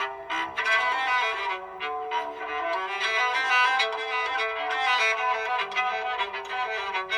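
Phone alarm tone from an LG X2 playing a quick melody on a bowed string instrument, one note after another.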